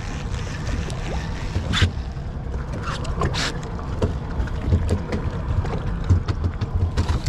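Wind buffeting the microphone with a steady low rumble aboard a boat at sea, scattered with small clicks and two short hissing bursts about two and three and a half seconds in.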